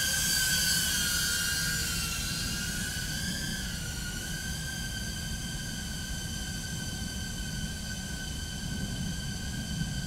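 Tank95-HD 2-inch FPV quadcopter's brushless motors and propellers whining in flight, the pitch wavering a little for the first few seconds and then holding steady, with a low rumble underneath.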